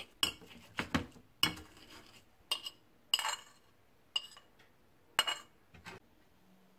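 Dishes and cutlery being handled, clinking: about ten sharp, irregular clinks over six seconds, some with a short ring.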